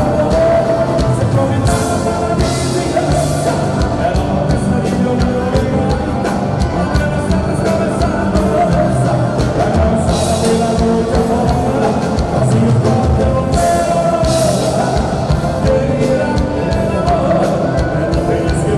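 Live gaúcho folk band music led by several piano accordions, with electric guitar and drums, a male voice singing, and cymbal crashes now and then.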